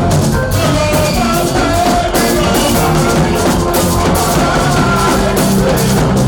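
Loud live band music with a steady drum-kit beat, bass and sustained keyboard or guitar notes, with a voice singing over it.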